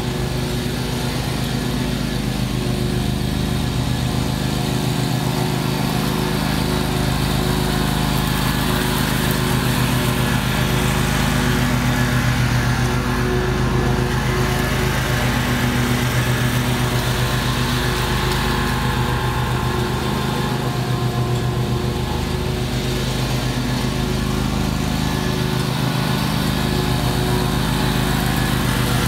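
Exmark stand-on commercial mower with its engine running steadily under load, blades cutting through and mulching dry leaves on the lawn.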